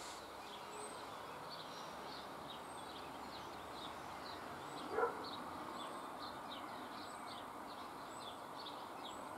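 Small birds chirping faintly and repeatedly over a steady outdoor background hiss, with one short, louder sound about five seconds in.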